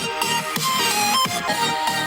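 Electronic dance music playing through a small Ambrane BT-47 Bluetooth speaker in a sound test: a synth melody stepping up and down between notes over a bass line, with little deep bass.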